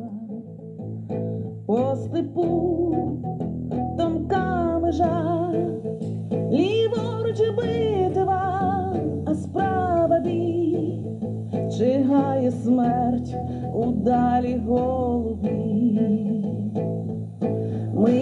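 A song with singing and guitar playing from a Sanyo M9830K boombox's FM radio, tuned to a station received in stereo; it gets louder about two seconds in.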